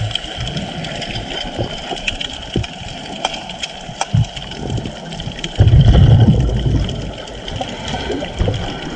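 Muffled underwater water noise with scattered clicks, and a loud, low rush of churning water and bubbles starting a little past halfway and lasting about a second and a half.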